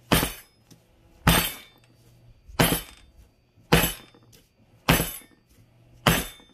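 Cake pan full of pound cake batter banged down on the counter again and again, about once every second and a bit, six strikes in all, each with a short metallic ring, to knock the air bubbles out of the batter.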